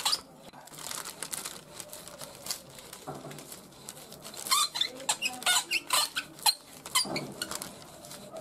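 Wooden rolling pin pressed back and forth over baking paper on a sticky date-and-oat mixture, the paper crinkling and squeaking in a run of sharp crackles that grow busier and louder about three seconds in.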